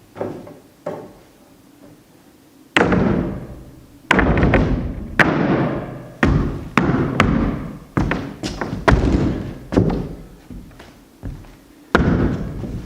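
Repeated heavy thuds of a wooden framing piece being pounded into a tight fit, a dozen or so irregular blows starting about three seconds in after a few light knocks.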